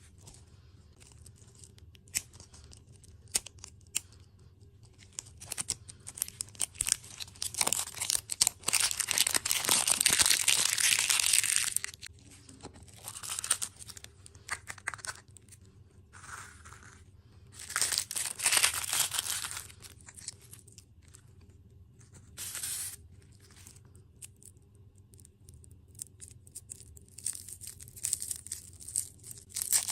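Wrapping torn open and crinkled by hand, in several bursts of ripping and rustling: a long loud rip about a third of the way in, shorter ones later, with small clicks and crackles between.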